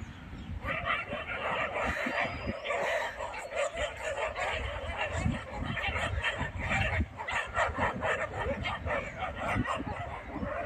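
A pack of street dogs barking and yelping all at once, many voices overlapping without a break.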